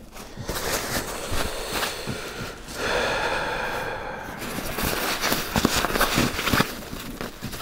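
Rustling and scraping of a sleeping bag's nylon compression sack and its straps as they are handled and loosened, with a longer rasping pull about three seconds in.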